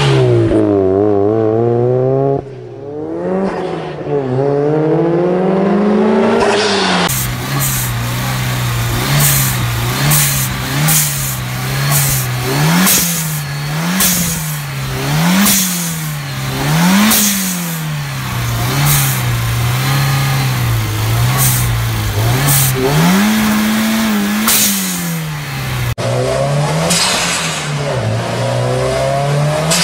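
Turbocharged car engines revving with their aftermarket blow-off valves venting. A car speeds past at the start. Then a parked engine is blipped over and over, and each throttle lift-off is followed by a sharp hiss of released boost.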